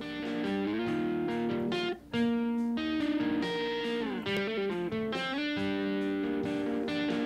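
Electric guitar playing a riff of held chords and notes, played back through a software compressor set to a long attack of about 420 ms. It breaks off briefly about two seconds in.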